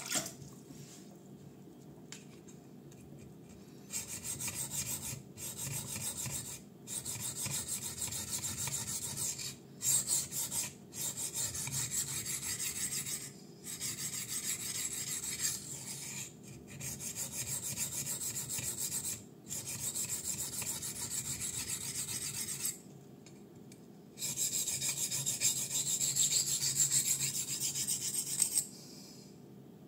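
Steel blade of a Kizer Fighter folding knife (154CM steel) stroked rapidly across the fine side of a DMT Duo Sharp diamond plate: a dry, high-pitched scraping rasp that begins about four seconds in and goes in runs of a few seconds with short pauses between, refining the edge at the fine-grit stage of sharpening.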